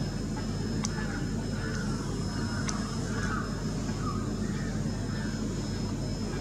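Steady low rumble of distant traffic, with two faint clicks about one and three seconds in.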